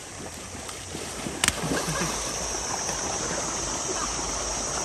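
Feet splashing through shallow running water in an irrigation channel, over the steady rush of the water. A single sharp knock comes about one and a half seconds in.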